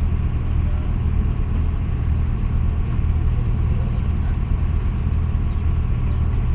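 Passenger launch's engine running at a steady pace, a constant low drone.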